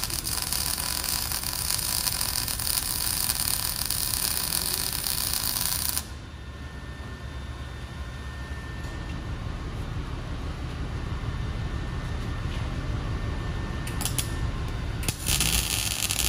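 Arc welding on a car's exhaust pipe: a dense crackling hiss that cuts off sharply about six seconds in. After a quieter stretch of shop background, the crackle starts again about fifteen seconds in.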